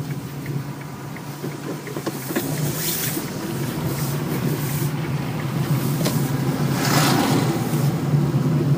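Car running, heard from inside the cabin: a steady low engine and road hum that grows a little louder toward the end, with a brief hiss about seven seconds in.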